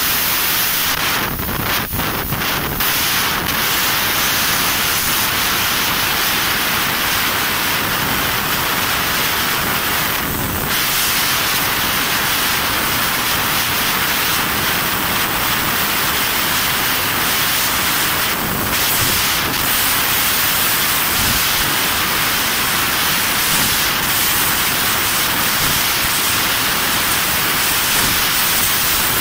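Fiber laser tube-cutting machine cutting a metal tube: a steady, loud hiss of gas rushing from the cutting head as the laser cuts, with a few short crackles scattered through it.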